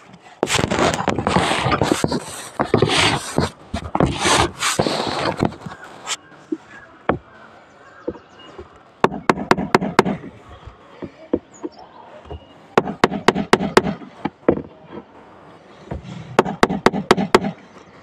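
Hammer tapping the plastic handle of a screwdriver held point-down, in three quick runs of about six to eight light blows each, driving the screwdriver's tip into a surface. A few seconds of louder, unclear noise come first.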